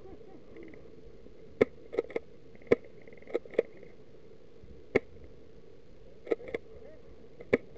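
Airsoft guns firing single shots: about ten sharp, irregularly spaced cracks, some nearer and louder than others, over a faint steady hum.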